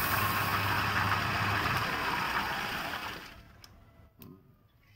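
Wood lathe running with a steady low hum while a wad of fibre is pressed against the spinning wooden bottle, making a loud rushing friction hiss as it burnishes the surface. The sound cuts off about three seconds in, leaving quiet with a couple of faint clicks.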